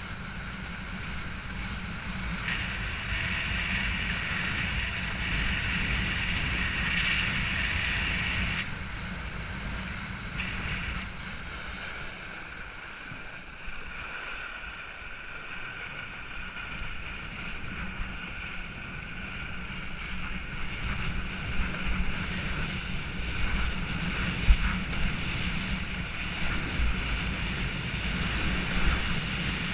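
Wind noise on an action-camera microphone and water rushing under a kiteboard planing across light chop. The rush grows louder in the second half, with short slaps from the chop.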